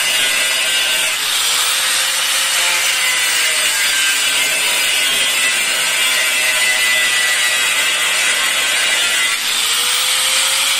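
Handheld angle grinder grinding into the steel front crossmember of a Kia Cerato, a loud, steady hiss of disc on metal. It dips briefly near the end and picks up again.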